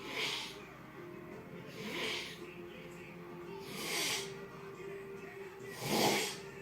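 Snoring in a regular rhythm, one snore about every two seconds, four in all, the last one louder and deeper. The snores sound like a sump pump.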